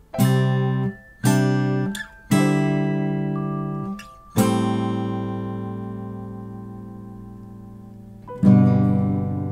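Acoustic guitar music: five strummed chords, the first three stopped short after about a second each, the fourth and fifth left to ring out slowly.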